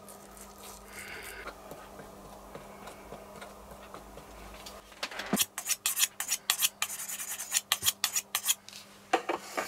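A knife blade being honed on a steel sharpening rod: quick metal-on-metal scraping strokes, several a second, starting about five seconds in and stopping near the end. Before them there is only faint handling of the glue bottle and the shoe part.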